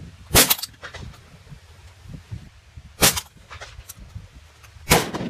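Three sharp gunshot reports from a hunting gun, the first about half a second in, the next about two and a half seconds later, and the last near the end.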